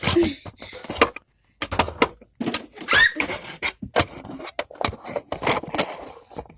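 Handling noise: a run of irregular clicks, knocks and clatters of objects being moved, with a brief rising squeak about three seconds in.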